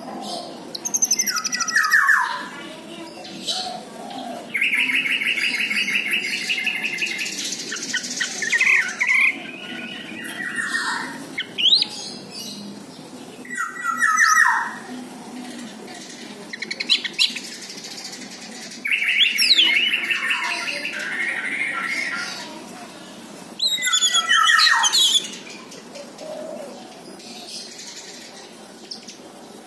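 Orange-headed thrush singing: varied phrases of quick falling whistles and upward glides, broken by long rapid trills of two to three seconds each, with short pauses between phrases.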